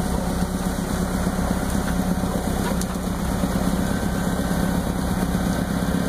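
Tractor engine running steadily while driving its snowblower attachment, which throws snow; an unbroken low hum under a steady rushing noise.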